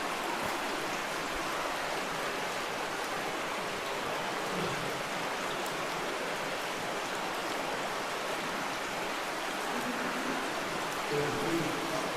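Steady rush of flowing creek water, an even hiss with no pauses.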